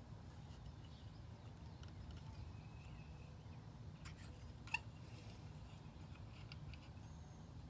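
Faint clicks and taps of a lamp socket and light-fixture parts being handled while the socket is threaded into place, with one sharp click near the middle, over a low steady hum.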